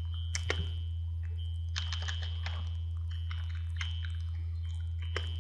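Computer keyboard keys pressed one at a time as digits are typed, a scatter of soft clicks, over a steady low hum.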